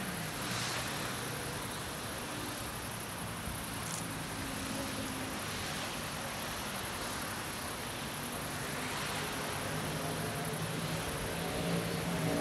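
Distant propeller aircraft droning low over a steady outdoor hiss, the drone growing a little stronger near the end. A faint, high, steady insect trill runs underneath.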